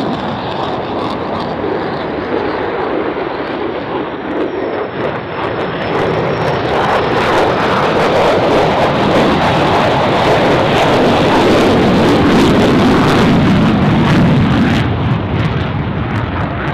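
F-35A Lightning II's Pratt & Whitney F135 turbofan at takeoff power as the jet climbs away: a loud, steady jet roar that swells about eight seconds in, with a ragged crackle over its loudest stretch.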